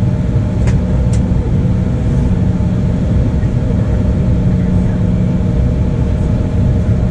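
Steady cabin noise inside an Embraer ERJ-175 jet airliner: the engines and airflow running with a deep rumble and a steady hum. Two short sharp knocks come about a second in.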